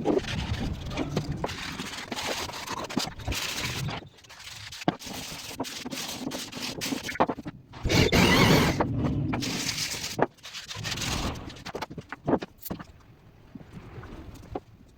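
Irregular scraping and knocking of wood being worked with hand tools, in uneven strokes with sharp clicks between them and a louder, longer scrape around the middle.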